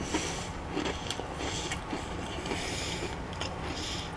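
Chewing a crunchy kettle-cooked potato chip: a string of irregular crisp crunches.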